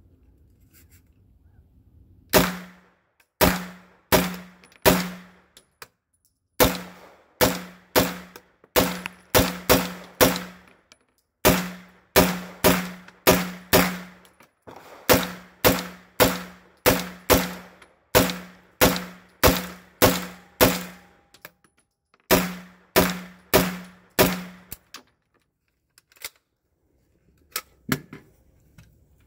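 PTR 9CT 9mm pistol (an MP5 clone) firing semi-automatic, more than thirty shots at about two a second in several strings with short pauses, each shot ringing briefly. It runs through the magazines without a stoppage.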